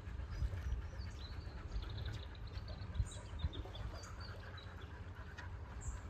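A small songbird singing a quick run of high, rapidly repeated notes for a couple of seconds, over a low, uneven rumble.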